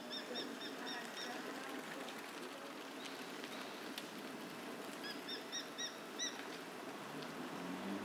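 Male Japanese sparrowhawk calling: two rapid series of short, high, evenly spaced notes, about five a second. The first series of about seven notes comes at the start, and the second, of about six, comes about five seconds in and rises slightly in pitch toward its end.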